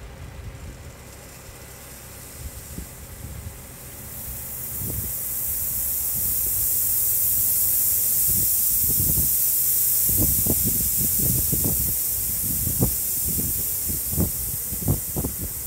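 A load of gravel pouring off a side dump trailer as its tub tips sideways. A rushing hiss builds from about four seconds in and then holds steady. Low, irregular rumbles and thumps run underneath.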